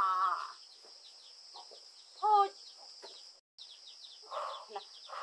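A loud wavering pitched call right at the start and a shorter pitched call about two seconds in, over a steady high chirring with short chirps repeating throughout.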